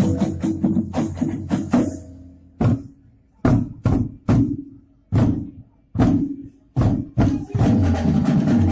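Drum-led percussion music for a stage dance. A dense groove breaks off about two seconds in into a series of single loud accented drum strikes with short pauses between them, then the full groove comes back near the end.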